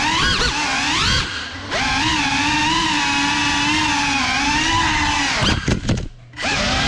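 GEPRC CineLog 35 cinewhoop drone's brushless motors and ducted propellers whining, the pitch rising and falling with the throttle. Near the end the whine stutters and drops out briefly, then picks up again.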